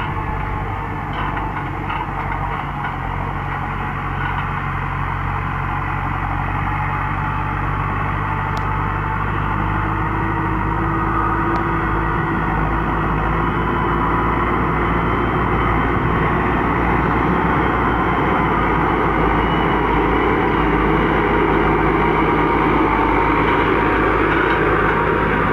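New Holland T5060 tractor's four-cylinder diesel engine running steadily under load as it pulls a cultivator through the soil. It grows gradually louder as the tractor comes closer.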